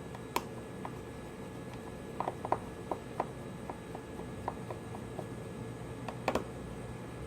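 Small clicks and light taps of hand tools on a smartphone's housing during disassembly, over a steady low hum. There is a sharper click about half a second in, a run of ticks in the middle, and a double click near the end.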